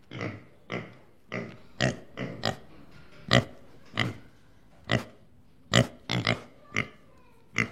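Pig grunting over and over in short, separate grunts, about two a second at uneven spacing.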